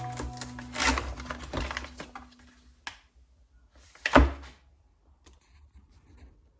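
Handling noises: a few light clicks and knocks, with one louder thunk about four seconds in, as the tail of background music fades out.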